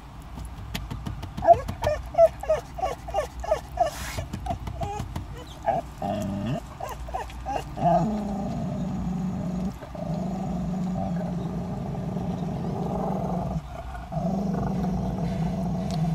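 Dog whining in a run of short high squeaks, about three a second, then settling into a long, steady low growl from about halfway, broken by a brief pause near the end.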